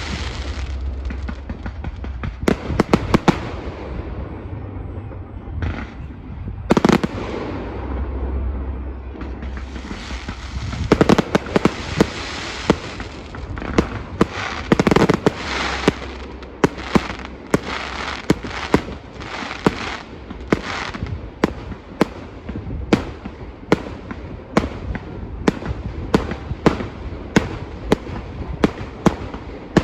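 Fireworks display: shells bursting with sharp bangs over a dense crackle and a low rumble. From about halfway on the bangs come in a steady string, about three every two seconds.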